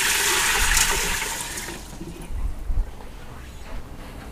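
Water poured from a glass pitcher into a stainless steel Instant Pot inner pot: a steady splashing rush that tapers off about two seconds in.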